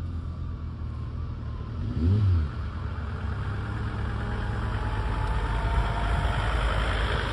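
A motor vehicle's engine grows louder from about halfway through, its note rising slowly as it accelerates, over a steady low rumble. About two seconds in, a brief low sound rises and falls in pitch.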